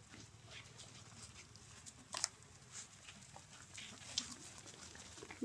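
Faint, scattered rustling and crackling of dry leaf litter as young macaques move over it, with a couple of sharper crackles about two seconds and four seconds in.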